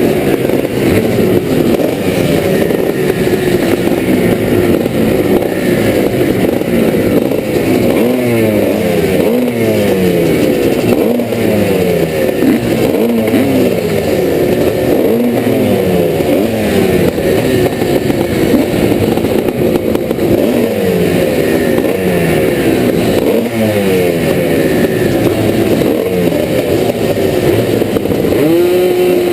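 Two-stroke motocross motorcycles racing, engines rising and falling in pitch over and over as they rev and shift through the gears.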